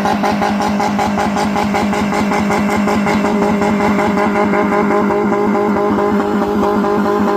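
Old car engine running loudly at a steady speed, its exhaust beating in a fast, even pulse.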